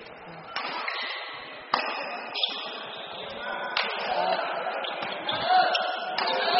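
Badminton rackets striking a shuttlecock in a rally: several sharp hits a second or two apart, with voices murmuring in the background.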